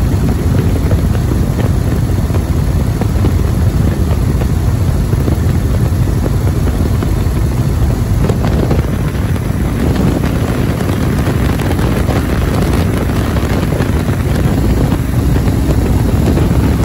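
In-flight noise from an open-cockpit Waco UPF-7 biplane: slipstream wind buffeting the microphone over the steady drone of its Continental W-670 seven-cylinder radial engine at cruise power.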